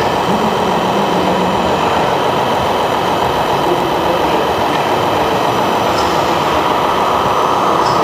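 Radio-controlled Scania timber truck model running its loading crane: a loud, steady mechanical drone with a constant whine near 1 kHz that does not let up.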